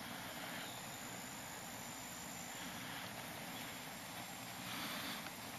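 Faint, steady outdoor background hiss with no distinct events, swelling slightly near the end.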